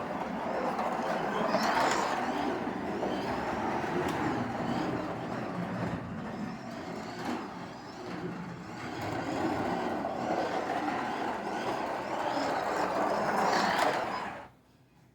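A Carrera Digital 124 BMW M4 slot car running laps at 18 volts on its stock hard rubber tires: motor and tire noise on the plastic track, swelling and fading as the car comes near and goes away, then cutting off suddenly about fourteen seconds in.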